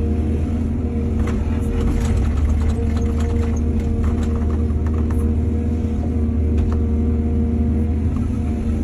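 Heavy diesel engine of an excavator running steadily under load, with a low hum. A scattering of short clicks and knocks comes on top of it during the first half.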